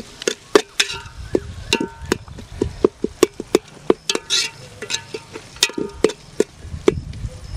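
A metal spoon stirring masala in a metal pot, knocking and scraping against the pot's sides in a quick, uneven run of clinks, about three a second, each with a short metallic ring.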